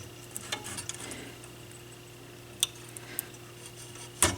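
A few small sharp clicks and taps of parts being handled while the dial lamp is worked out of the receiver, the loudest click near the end, over a faint steady hum.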